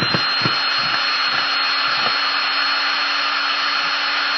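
Battery-powered cordless drill running steadily to back a screw out of wood, its motor giving a steady high whine that stops near the end.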